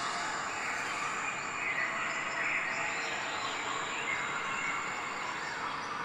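Steady hiss-like background noise, even in level, with no distinct sounds standing out.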